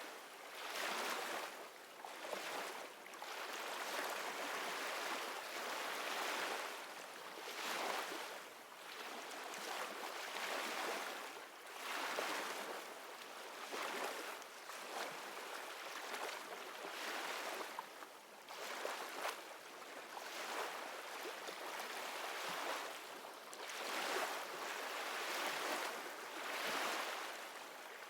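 Ocean-wave ambience: a soft rushing that swells and fades every couple of seconds.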